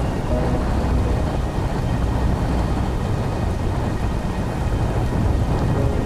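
Strong wind buffeting the microphone in a steady low rumble, with rain falling.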